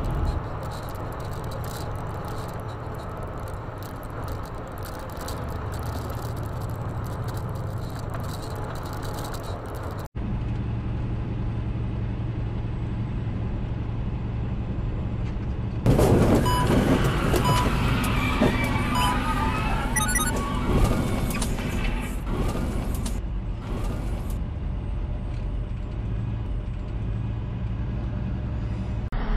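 Steady engine and road noise of a semi truck driving at highway speed, heard from inside the cab. About halfway through, a louder stretch of noise with short high beeps comes over it for several seconds.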